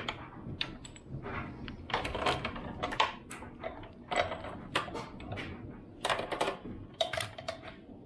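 A dirt bike's steel roller drive chain clinking and rattling as it is pulled off the front sprocket, with a run of irregular metallic clicks and clanks, some ringing briefly. The chain has been cut after being thrown and jammed against the sprocket.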